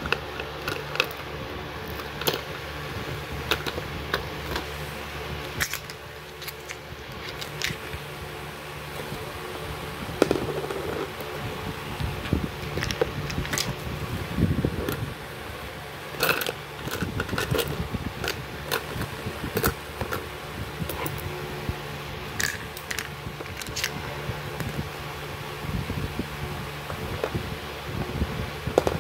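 Scattered clicks, taps and knocks of hands handling a homemade cardboard-box ballpen dispenser, over a steady low hum.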